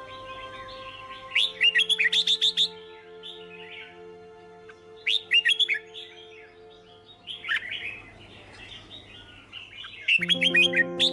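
Songbird chirping in quick runs of sharp, downward-sweeping notes, in four bursts a few seconds apart, over soft background music with long held notes.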